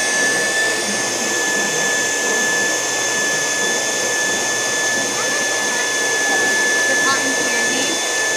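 Build-A-Bear stuffing machine running with its foot pedal held down, blowing fluff into a teddy bear: a steady rush of air with a constant high whine.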